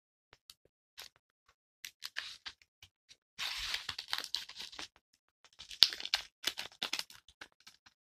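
Paper rustling and crinkling as the stiff pages and torn-edged paper pockets of a handmade junk journal are handled and turned, with light taps and scrapes. The longest rustle comes about three and a half seconds in, followed by a run of crackles.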